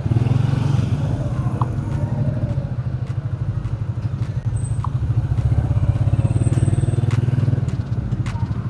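A 150 cc single-cylinder four-stroke Italika FT150 motorcycle engine running steadily at low revs with an even, rapid putter.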